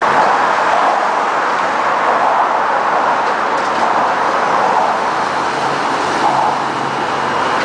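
Steady road-traffic noise, an even rush with no distinct events.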